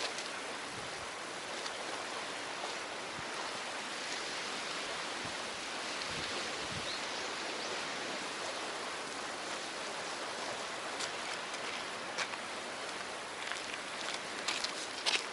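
Steady rushing noise of wind and sea water at the shore, with a few light clicks near the end.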